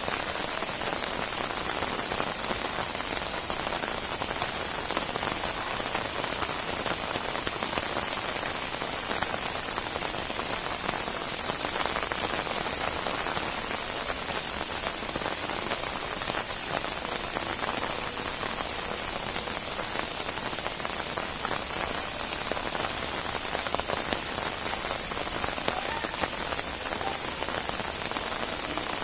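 Steady rainstorm: heavy rain falling, a dense, even patter of drops.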